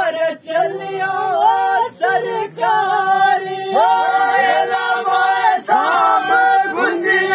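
Men singing a Dogri folk song together, holding long notes that glide from one pitch to the next.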